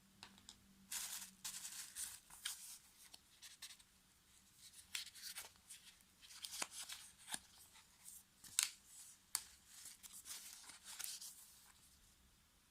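Soft handling sounds of packaging: a run of short scratchy rasps and tearing-like rustles with sharp clicks, starting about a second in and dying away near the end.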